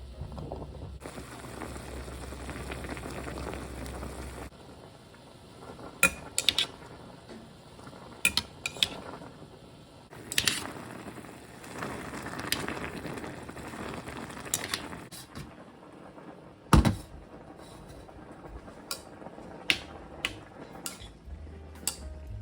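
Cooking utensils and kitchenware clinking and knocking against a pot and dishes, about a dozen sharp clinks spread out, with one heavier dull knock. Two stretches of a steady hiss run beneath, near the start and in the middle.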